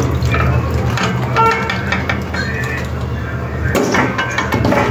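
Hand sloshing and rubbing Ceylon olives in water in a steel pan, with water splashing and the fruit knocking against the metal, over a steady low hum.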